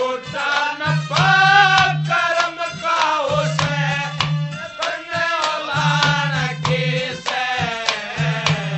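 Instrumental interlude of Haryanvi ragni folk music: a melody instrument plays lines that bend and glide over a steady hand-drum rhythm. A deep drum tone is held for about a second at regular intervals under the quicker strokes.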